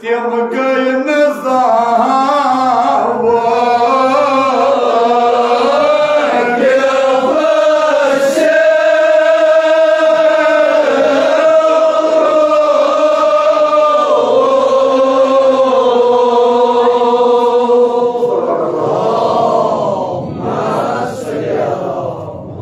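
A man chanting a Kashmiri marsiya (mourning elegy) into a microphone, in long held, wavering notes. The chant grows softer in the last few seconds.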